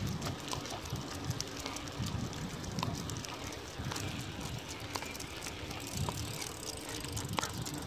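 Road bicycle rolling along asphalt: continuous tyre and road rumble with a faint steady hum and scattered light clicks.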